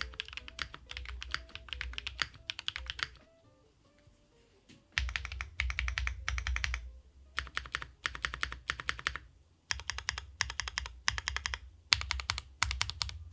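Typing on a Sakura Studio Fuji 75 mechanical keyboard with lubed JWK Night Sakura switches, an aluminium plate and JTK Night Sakura keycaps: rapid keystrokes in bursts, with a pause of nearly two seconds about three seconds in. Soft background music underneath.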